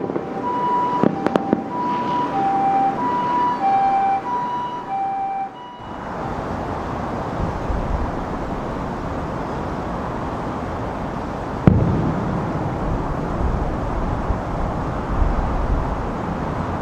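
Two-tone hi-lo emergency siren of the Japanese ambulance kind, alternating between two pitches, with a couple of distant firework bangs about a second in. The siren cuts off suddenly about six seconds in, leaving a steady outdoor rumble and hiss with one sharp bang near the middle.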